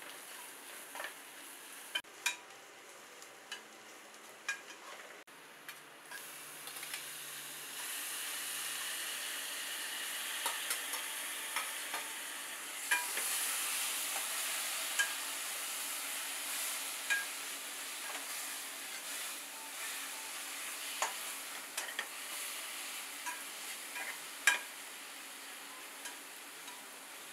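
Sliced onions and spices sizzling as they fry in oil in a pot, while a metal spatula stirs them, scraping and tapping against the pot in scattered sharp clicks. The sizzle swells about six seconds in and eases toward the end.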